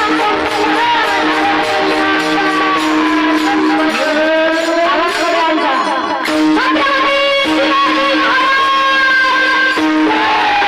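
Devotional kirtan music: a woman singing long, high, ornamented notes that glide up and down over a steady drone note and instrumental accompaniment.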